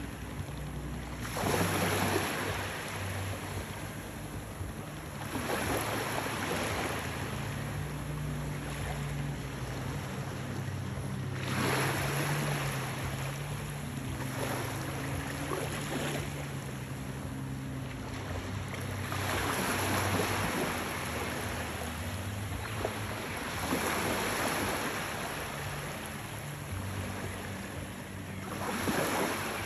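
Small sea waves washing onto the shore, each swell rising and falling about every four to five seconds, over a low steady hum.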